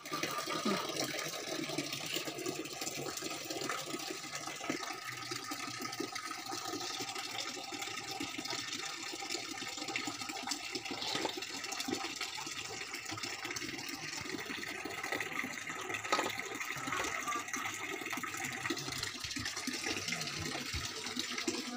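Water running steadily from a tap into a bucket, with small splashes and knocks as a dog is washed by hand.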